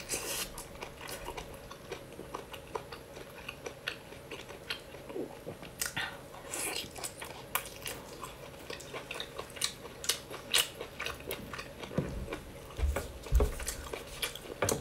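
Close-miked biting and chewing of cooked octopus tentacles, with irregular wet clicks and crackles from the mouth. A few dull low thumps come near the end.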